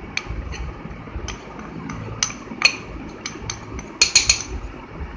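A small bowl tapped and knocked against a steel mixing bowl while refined flour is shaken out of it: a string of light, separate clinks and taps, with a quick run of three about four seconds in.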